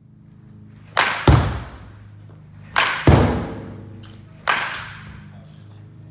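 Baseball bat hitting balls in batting practice: three cracks of the bat about a second and a half to two seconds apart. The first two are each followed a fraction of a second later by a deeper, heavier thud of the ball landing.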